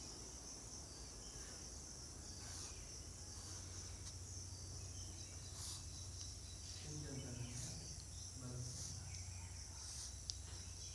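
Faint scratches of chalk drawing lines on a blackboard, one every second or two, over a steady high-pitched chirring of insects and a low hum.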